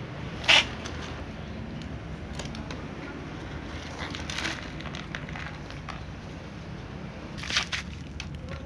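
A cat crunching dry kibble, with one loud sharp crackle about half a second in; after that only scattered clicks and rustles over a steady low hum.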